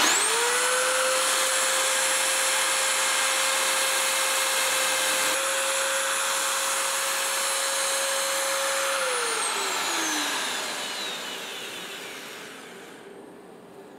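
Milwaukee magnetic drill press with an annular cutter: the motor whines up to speed, runs at a steady pitch for about nine seconds, then is switched off and winds down with a falling whine.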